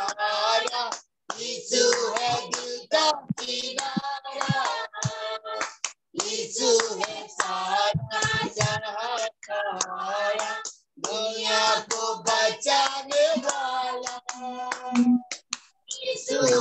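A small group of women singing a hymn together in unison, clapping their hands along with it. The sound comes over a video call and cuts out briefly several times.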